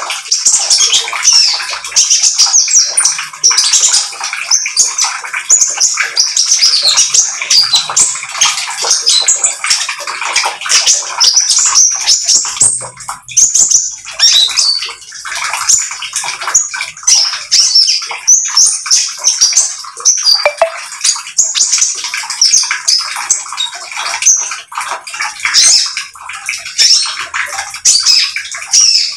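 Caged konin, a small sunbird, singing its 'trotol' song: a loud, rapid, chattering stream of high twittering notes that runs on without pause.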